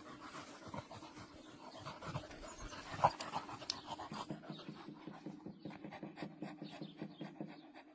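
A dog panting quickly and rhythmically, out of breath from repeated ball-chasing.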